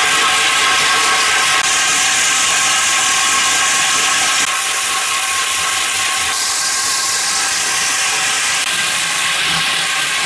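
HMC500 electric diamond core drill running steadily under load as its 500 mm wet-cutting core bit bores into concrete: a steady motor whine of several fixed tones over a loud, even hiss.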